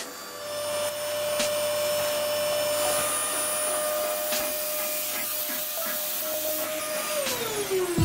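Household vacuum cleaner running with a sock stretched over the end of its hose, sucking up scattered sweets; its motor whine holds steady, then drops in pitch near the end as it is switched off and winds down. A couple of short clicks come through, about one and a half and four and a half seconds in.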